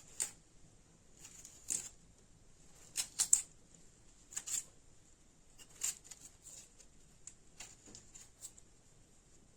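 Irregular short scrapes and clicks of taro being handled and worked by hand in the kitchen, with the sharpest cluster about three seconds in.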